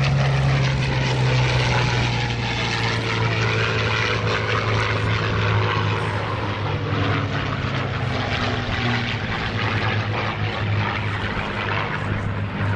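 Supermarine Spitfire's V12 piston engine in a low flyby, a loud steady drone whose pitch drops over the first couple of seconds as the fighter passes.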